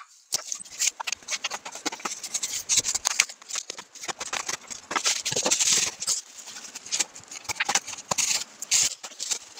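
Bubble wrap being cut with scissors and pulled open off a boxed package: a dense run of crinkling, crackling plastic.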